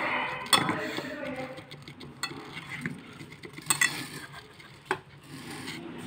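Irregular taps and clinks of a shallow metal pan as a small child slaps and presses a piece of dough in it with bare hands, a few sharp knocks spread through.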